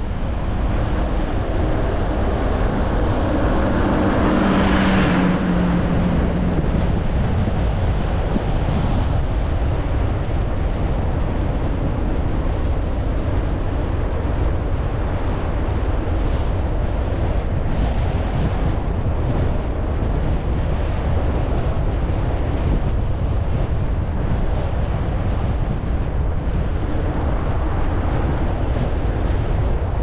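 Car driving, with a steady rumble of engine and tyres and wind buffeting the microphone. A louder swell with a humming tone builds and fades about four to six seconds in.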